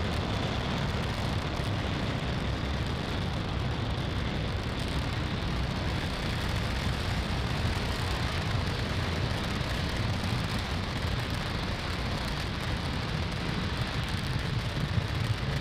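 Falcon 9's nine Merlin 1D first-stage engines at full thrust during ascent, heard as a steady deep rumble with a rough hiss above it.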